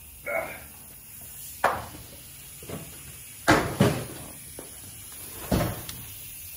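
Sharp knocks and clunks of fork parts being handled and set down on a workbench during front fork disassembly: four distinct knocks, the loudest a quick pair near the middle.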